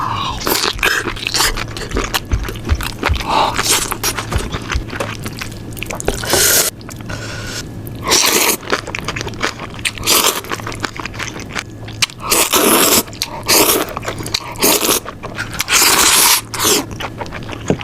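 Close-miked eating: repeated crunching bites and chewing, a loud noisy burst every second or two, with small clicks and smacks between them.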